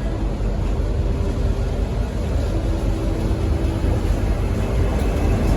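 V/Line N class diesel-electric locomotive's engine running at the platform, a steady low rumble, with a faint steady tone joining about halfway through.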